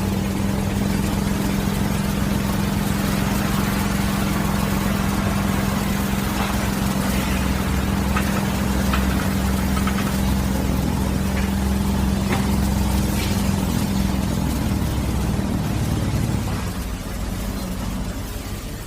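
Diesel engine of earthmoving machinery running steadily at a construction site, with a strong held drone that drops away about three-quarters of the way through. A few short knocks sound over it.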